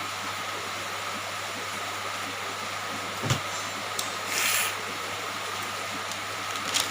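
Steady rain falling, with a knock about three seconds in and a short rustle about a second later.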